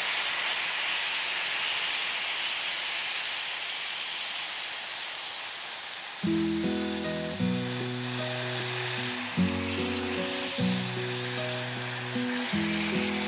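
Steady sizzling of oil in a hot frying pan on a gas stove. Background music with slow, sustained chords comes in about six seconds in.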